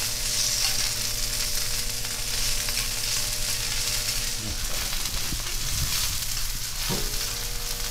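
Kobe beef steaks sizzling on a hot teppanyaki iron griddle: a steady frying hiss, over a low steady hum.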